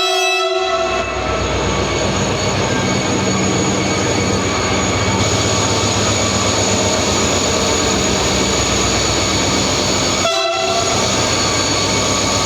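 Train horn sounding a chord that cuts off about half a second in, then the loud steady rumble of the train running, with a second short horn blast near the end.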